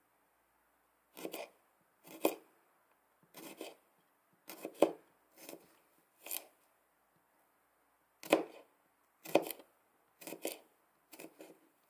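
Small knife slicing a garlic clove on a plastic cutting board: about ten separate cuts, each a short sharp knock of the blade on the board, roughly one a second, with a pause of nearly two seconds midway.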